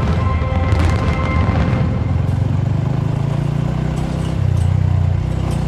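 Small motorcycle engine running steadily at low revs, growing louder about four and a half seconds in. Faint steady tones are heard over the first two seconds.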